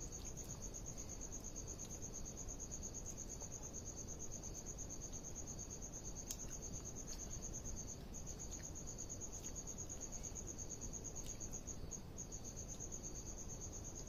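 Crickets chirping in a continuous high-pitched trill that drops out briefly a couple of times, over a low background rumble with a few faint clicks.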